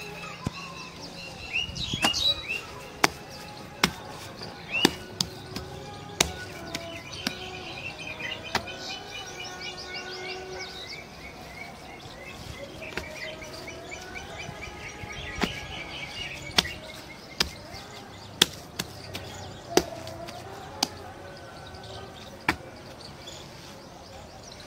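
Birds chirping and trilling all through, with sharp slaps every second or so, irregularly spaced, as wet cow dung is patted and pressed into cakes by hand.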